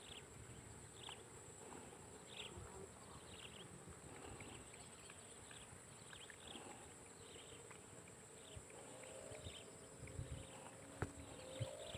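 Faint insect chorus: a steady high-pitched buzz with short chirps repeating every half second or so, and a few soft knocks near the end.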